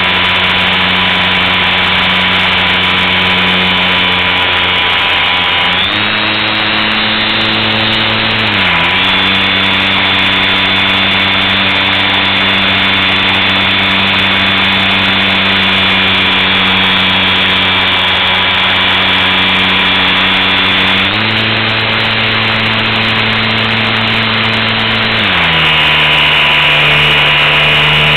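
Super Cub LP radio-controlled model plane's electric motor and propeller, picked up by the onboard camera, running with a steady drone. Twice the pitch steps up for a few seconds and drops back as the throttle is changed, about six seconds in and again past twenty seconds.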